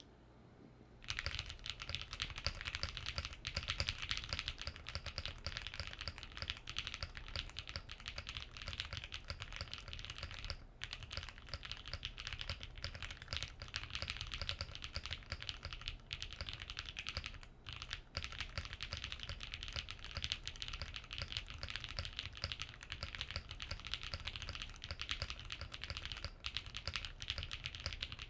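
Continuous typing on a GrayStudio Think 6.5 v2 mechanical keyboard with lubed KTT Rose linear switches, an FR4 plate and PBT keycaps: a dense run of keystroke clacks that starts about a second in, with two brief pauses.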